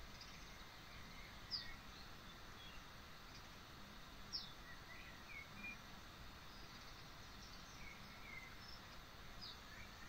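Faint bird calls from a bird video played through a laptop speaker: three short, high, downward-sweeping calls a few seconds apart, among softer scattered chirps over a steady hiss.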